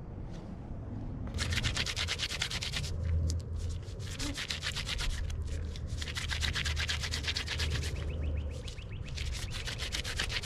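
Putty being mixed by hand: rapid, rhythmic scraping and rubbing in several bursts with short pauses between them.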